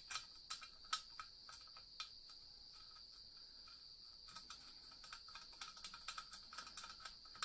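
Small metallic clicks and ticks of stainless steel bolts and washers being threaded by hand into a La Pavoni lever espresso machine's group head: a few sharp clicks in the first two seconds, then a denser run of light clicks near the end. A faint steady high-pitched tone runs underneath.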